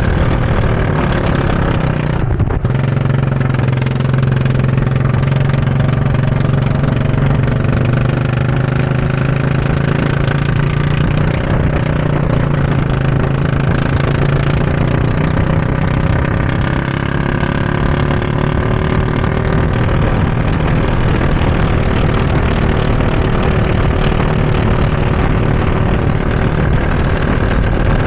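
Go-kart engine running at speed, heard from the driver's seat. It is loud and continuous, its pitch rising and falling gently as the throttle changes.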